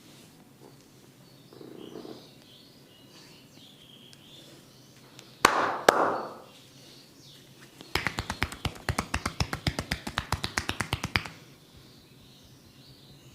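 A barber's hands striking the client during a back massage: two sharp slaps about half a second apart, then a fast, even run of percussive strikes lasting about three seconds. Faint bird chirps sound in the background.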